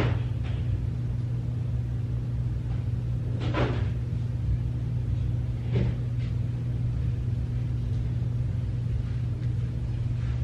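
A steady low hum, with three short knocks or rattles: one at the start, one about three and a half seconds in, and one about six seconds in.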